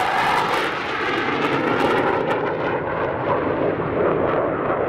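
Panavia Tornado GR4 jet with its twin RB199 turbofans passing low and flying away: the engine noise drops in pitch just after the pass, and its high hiss fades out a little over two seconds in, leaving a steady lower rumble as the jet recedes.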